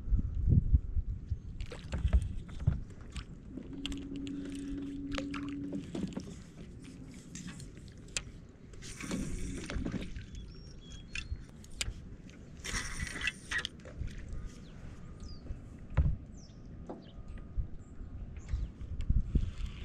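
Rod-and-reel handling and boat-deck noises on a bass boat, with wind rumbling on the microphone: scattered clicks and knocks, a short steady hum a few seconds in, and two brief hissing bursts near the middle.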